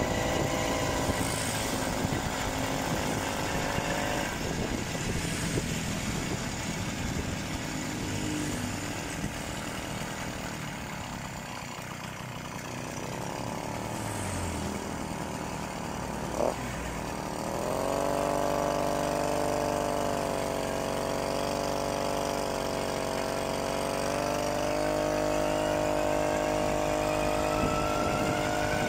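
BT80 80cc two-stroke motorized-bicycle engine running under way. It runs quieter through the middle, gives a sharp click a little over halfway through, then revs up with a rising pitch and runs steadily at a higher, stronger note.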